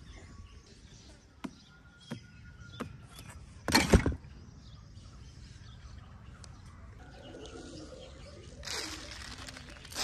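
Outdoor background with faint bird chirps and a few light clicks, broken by one loud, brief rustling thump about four seconds in and a shorter rustle near the end.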